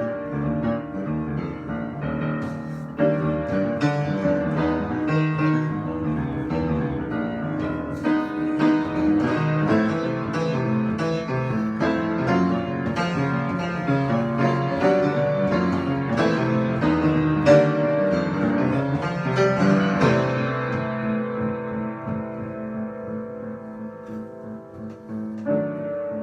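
Solo piano improvisation: many struck notes and chords ringing together, thinning about two-thirds of the way through into sustained low chords that slowly die away before a fresh chord near the end.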